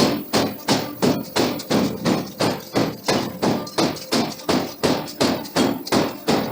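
Hammer blows on hot steel being forged, evenly spaced at about three strikes a second.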